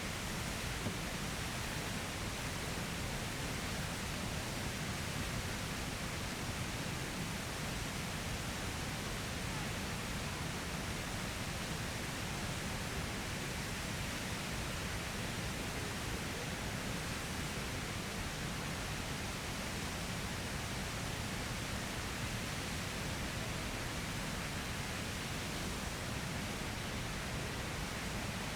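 Steady rushing of a waterfall, an even noise that holds without a break.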